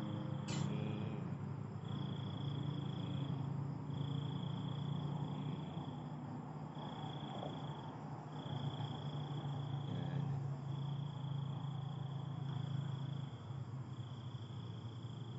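Night insects trilling: a high, steady chirr that comes in repeated stretches of about a second or so with short breaks, over a low steady hum.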